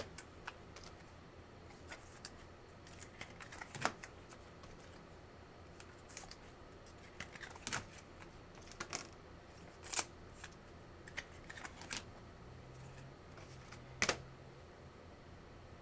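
Sports trading cards being handled: irregular light clicks, snaps and rustles of card stock, with a few louder snaps about 4, 10 and 14 seconds in.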